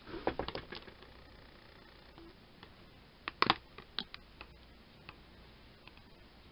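Clear acrylic miniature sheets and standee pieces clicking and snapping as flat 2D miniatures are handled and popped out of the sheet. A quick cluster of sharp snaps a little over three seconds in is the loudest, with lighter clicks scattered around it.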